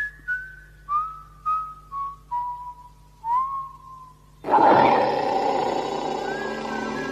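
Someone whistling a slow tune, single notes sliding into pitch and stepping downward. About four and a half seconds in, a loud, steady rushing sound comes in suddenly and holds.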